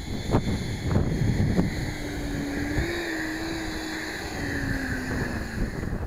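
Wind buffeting a head-mounted camera's microphone as a dense low rumble. In the first couple of seconds there are a few walking footsteps on grass, and from about two seconds in a thin steady hum runs for roughly three seconds.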